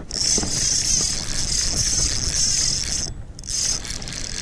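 Fishing reel being cranked fast, its gears whirring as a hooked bass is wound in; the cranking stops abruptly about three seconds in and starts again briefly near the end, over low rumble of handling on the microphone.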